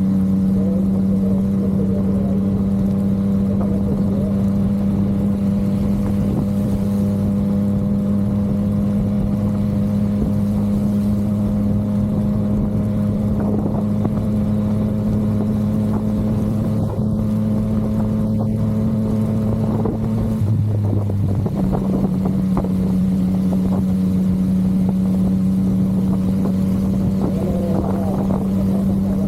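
Yamaha MT-09 inline three-cylinder engine running at a steady, even pitch while the bike is ridden, with road and wind noise over it. The note dips briefly about twenty seconds in and then holds steady again.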